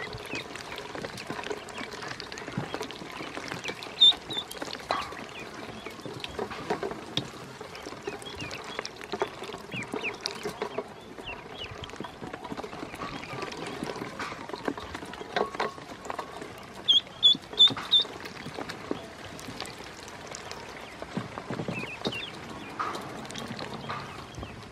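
Ducklings paddling and dabbling in a shallow stainless steel bowl of water, with a continual patter of small splashes and taps. Short high peeps come now and then, loudest as a run of four quick peeps about two-thirds of the way through.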